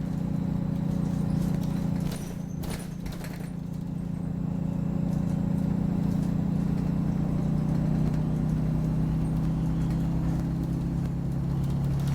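Optare Solo single-deck bus's diesel engine running steadily under way, heard from inside the saloon, its note dropping slightly in the second half. A few sharp knocks and rattles from the bus body come about two to three seconds in.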